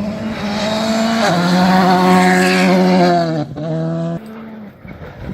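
Rally car at full throttle passing close by, its engine note loudest about two to three seconds in. The note drops briefly about three and a half seconds in, a gear change or lift, then fades as the car moves away.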